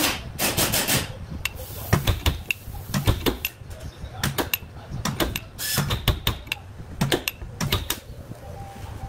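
Slide hammer dent puller striking again and again, sharp metal knocks in quick pairs and clusters, pulling a dented car body panel out by pins welded to it.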